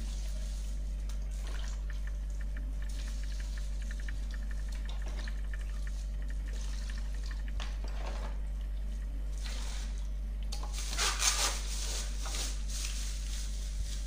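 Water poured from a plastic cup into a plastic bag and splashing in a plastic basin. Near the end comes a louder crackle of the plastic bag being handled and tied. A steady low hum runs underneath throughout.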